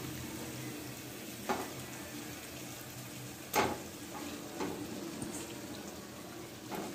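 Spiced masala sizzling gently in mustard oil in a kadai as raw chicken pieces are dropped in, with four short knocks as pieces land; the loudest comes about halfway through.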